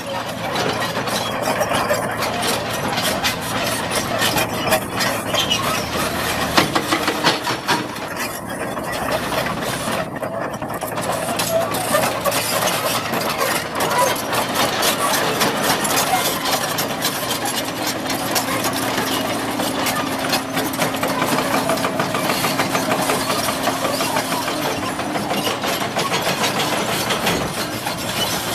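Komatsu PC200 hydraulic excavator's diesel engine running steadily, with a dense rapid clatter of small knocks and ticks over it throughout.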